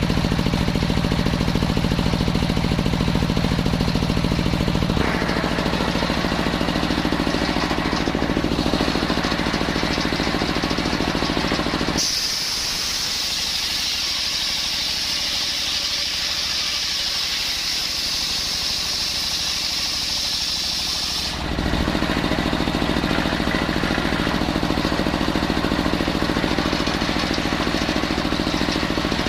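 Engine-driven circular saw running steadily as it saws coconut wood. About twelve seconds in the engine note gives way abruptly to a loud high hiss for roughly nine seconds, then the engine note returns.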